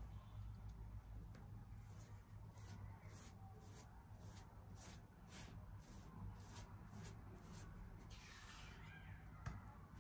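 Silicone spatula spreading cinnamon-sugar filling over rolled-out dough: soft, even scraping strokes, about two a second.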